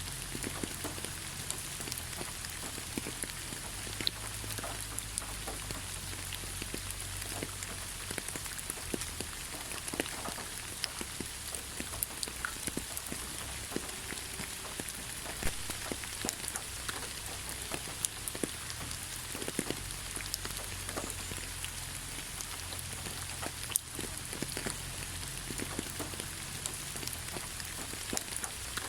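Steady rain falling on leaves, a constant hiss dotted with the irregular sharp taps of single drops.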